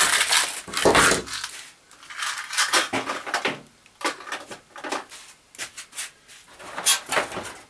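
Rummaging through small parts and tools on a cluttered workbench, searching for lost screws: irregular clatter, knocks and rustles, loudest in the first second or so, then scattered clicks.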